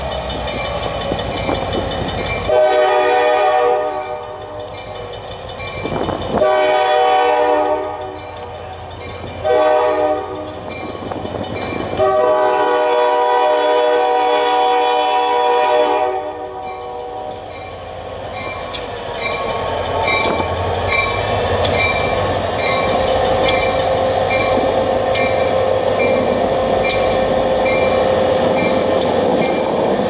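Diesel freight locomotive's chime air horn sounding the grade-crossing pattern: two long blasts, one short, then a final long blast of about four seconds. A crossing signal bell dings steadily around it. In the second half the locomotive's diesel engine runs as it rolls past, with wheels clicking over the rails.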